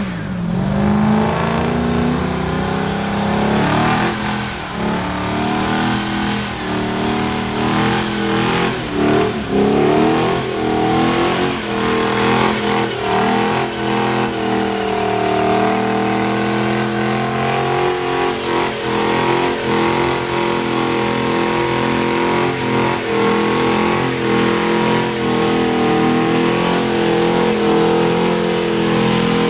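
Early-1970s Pontiac muscle car doing a burnout: the engine is held at high revs with the rear tyres spinning, the pitch swinging up and down over the first ten seconds or so, then holding more steadily at a high rev.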